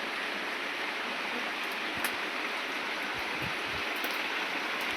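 A steady hissing, rushing noise at an even level, with a few faint clicks.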